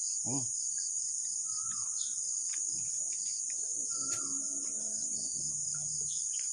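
Steady high-pitched drone of an insect chorus, with three short falling chirps over it and a brief voiced sound near the start.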